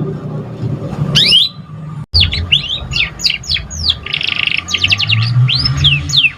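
Domestic canary singing: a fast run of high whistled notes sweeping up and down, with a buzzy trill in the middle, over a steady low hum. The song breaks off for a moment about two seconds in.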